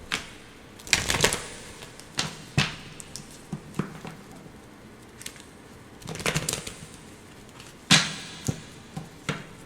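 Tarot cards being shuffled by hand: irregular bursts of flicking and snapping cards, a second or several apart, the sharpest snap about eight seconds in.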